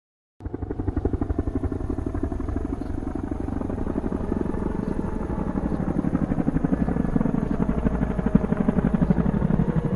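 Motorcycle engine running with a rapid, steady, lumpy pulse. It starts about half a second in and eases off near the end.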